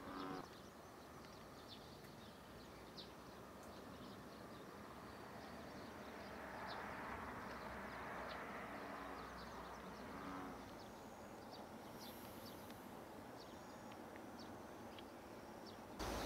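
Faint rural dawn ambience: many short, high bird chirps, with a brief low lowing call at the start and two fainter ones around eight and ten seconds in.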